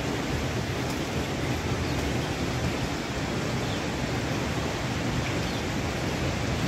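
Steady rain falling, an even, unbroken hiss with no distinct events.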